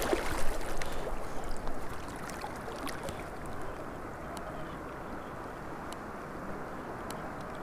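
Keiryu fixed-line rod and taut line singing under the pull of a hooked trout, a hiss that is louder in the first couple of seconds, over the steady rush of the river current.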